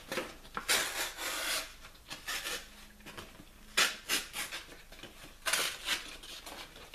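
Cardboard folders of sandpaper sheets rustling and sliding against each other as they are leafed through by hand in a plastic storage tub. The rustling comes in irregular bursts, the longest about a second in, with a sharp scrape near the middle.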